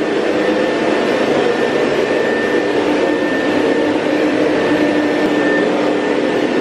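Canister vacuum cleaner running steadily, a constant motor drone with a steady whine.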